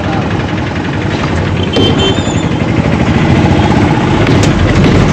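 Petrol tanker lorry's diesel engine running, heard from inside the cab as a loud, dense rumble with a fast clatter. It gets a little louder about two seconds in as the lorry pulls through the junction.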